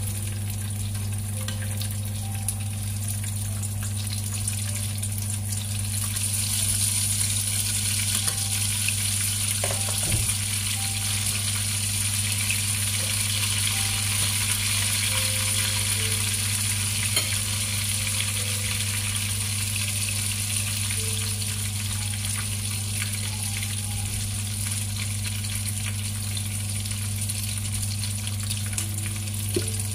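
Potato-corn cheese dumplings sizzling steadily in hot oil in a small frying pan, the sizzle growing louder about six seconds in and easing off later. A steady low hum runs underneath, with a couple of faint clicks.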